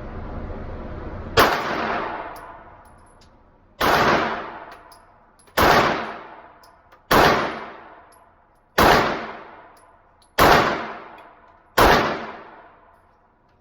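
Seven gunshots fired singly at a shooting range, about one and a half to two and a half seconds apart, each ringing out and dying away over a second or more. A steady rushing noise runs until the first shot.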